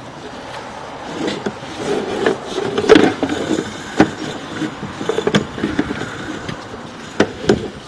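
Sewer inspection camera and its push cable being fed through a drain line: irregular knocks and clicks over a steady scraping, with the sharpest knocks about three and four seconds in.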